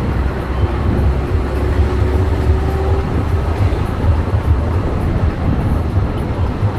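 Engine and road rumble of a moving bus heard from inside, heavy and steady. A faint held tone sounds for a couple of seconds about half a second in.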